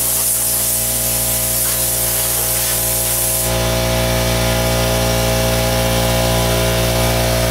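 Air compressor running steadily with a low hum, while a blow gun hisses a blast of compressed air over the mower deck that stops about three and a half seconds in.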